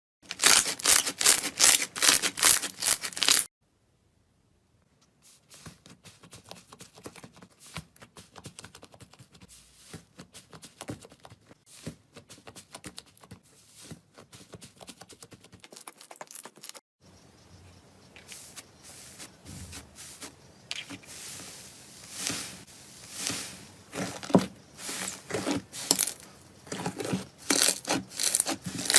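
Slime being squeezed, stretched and poked, giving dense runs of crackling, popping clicks. The first few seconds are loud, and then the sound breaks off. Quieter crackling follows, stops briefly, and then grows louder again.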